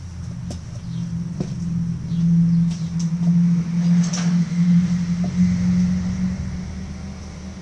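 A steady low motor rumble that swells in the middle and eases near the end, with a few faint clinks over it.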